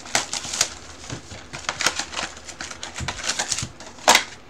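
Hands opening a cardboard hobby box and handling its foil-wrapped trading-card packs: a busy run of crinkling and rustling with small clicks, and one sharper crack about four seconds in.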